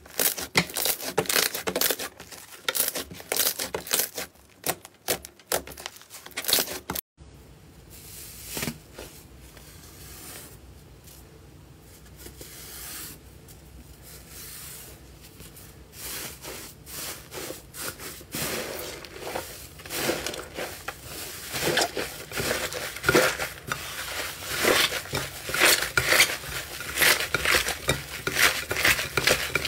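Hands kneading and squeezing slime: dense crackling and clicking, a brief dropout at a cut about seven seconds in, then softer squishing that builds into loud, rapid wet clicks as the slime is pressed in a bowl near the end.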